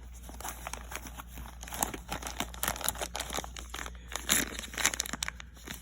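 Crinkling and rustling of plastic packaging being handled, with scattered light clicks and ticks of small hard items knocking together.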